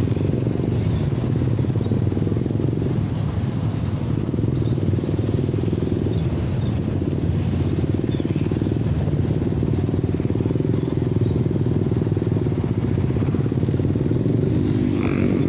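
Small motorcycle engine running steadily at low riding speed, heard from on board, with other motorcycles in slow traffic around it.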